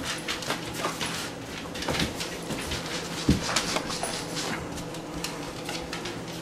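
Basset hound moving about at close quarters on a tile floor: a steady run of clicks, taps and scuffles, with one sharp knock about three seconds in.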